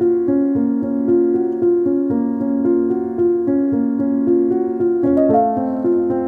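Background music: a gentle keyboard melody of held piano-like notes.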